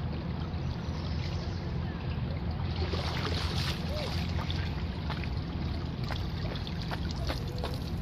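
Water splashing and lapping around a small boat over a steady low rumble, the splashing getting busier about three seconds in.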